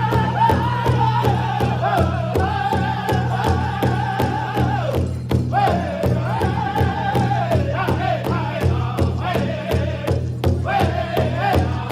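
Powwow drum group singing an intertribal song: several voices singing high in unison over an even, steady beat on a big drum. The singing breaks briefly twice, between phrases, while the drumbeat carries on.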